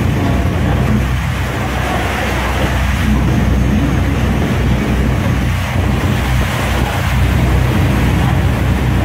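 Niagara Falls' plunging water making a loud, steady roar, heaviest in the low end.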